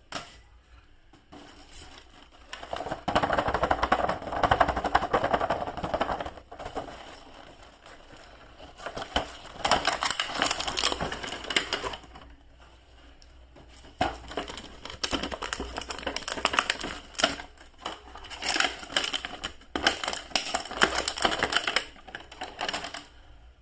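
Plastic toy packaging being handled and opened: bouts of dense crinkling and rapid clicking, separated by quieter pauses.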